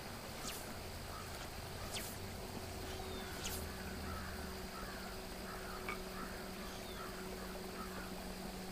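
Faint outdoor ambience with a bird calling in a run of short repeated notes, about two a second, from about three seconds in. A few faint ticks come earlier, under a steady low hum.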